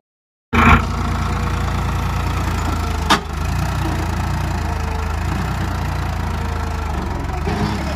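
Tractor diesel engine running steadily at a low, even idle, cutting in about half a second in. A single sharp click sounds about three seconds in.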